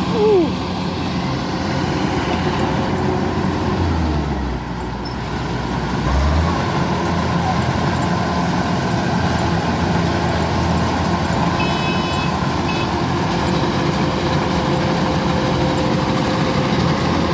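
Kubota DC-105X combine harvester running steadily while cutting rice, its diesel engine and threshing machinery making a continuous drone. The sound eases for about two seconds a third of the way through, then comes back up.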